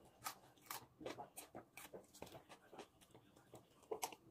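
Faint eating noises: soft, scattered clicks and rustles of someone chewing a pickle and a foil-wrapped shawarma.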